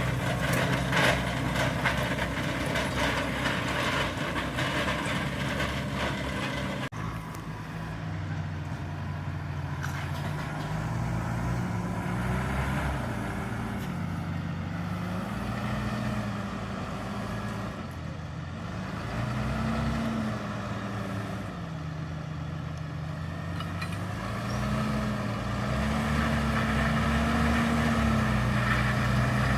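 Valtra Q Series tractor's six-cylinder diesel engine working under load while pulling a five-furrow plough. Its note dips and rises every few seconds as the load changes. About seven seconds in the sound changes suddenly, from a busier, rattly mix to a smoother engine note.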